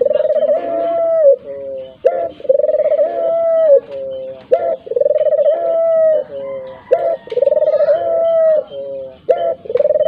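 Barbary dove (puter) cooing its repeated call: each phrase a short note, then a long held coo that drops at the end, then a lower note, about four phrases evenly spaced.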